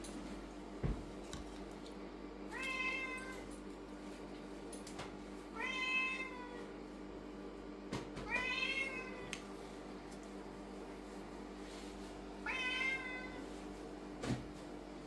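Lynx point Siamese cat meowing four times, each drawn-out meow a few seconds apart. A few light knocks fall between them.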